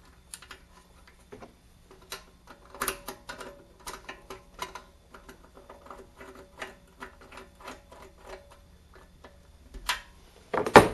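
Light, irregular metal clicks and taps of a small bolt and hand tools being fitted to the engine's throttle linkage, with a louder clack near the end.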